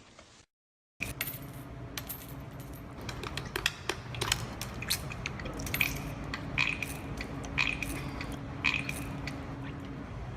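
A series of sharp metallic clinks and taps over a steady low hum, starting about a second in.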